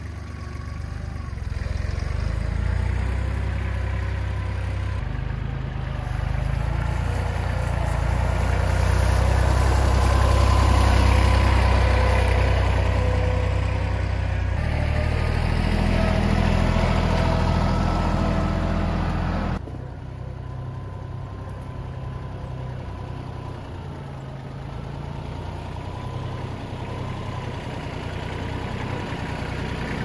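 Kubota L3010 compact tractor's diesel engine running as it carries a stump in its front-loader bucket. It grows louder toward the middle, then drops abruptly about two-thirds through to a quieter, steady run.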